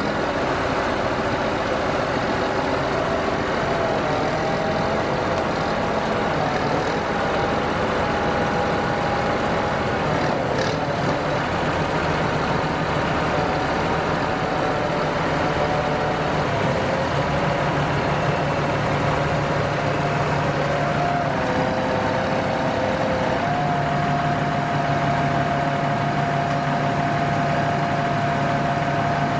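Farm tractor diesel engines running steadily as a front loader handles a heavy oak log. The engine note shifts in steps, dropping about ten seconds in and rising again near the end.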